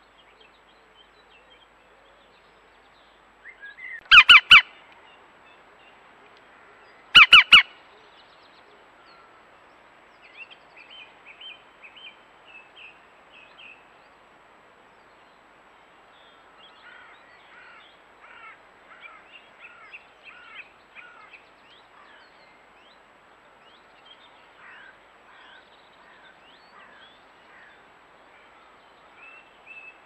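Green woodpecker giving two loud, short calls about three seconds apart, each lasting about half a second. Faint chirping of small birds follows through the rest.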